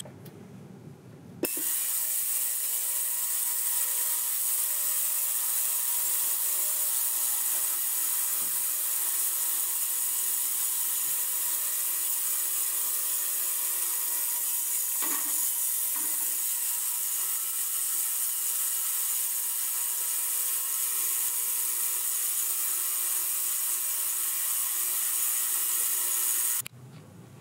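Ultrasonic cleaner running with carburetor parts in its bath: a steady high hiss with several faint steady tones. It switches on about a second and a half in and cuts off just before the end.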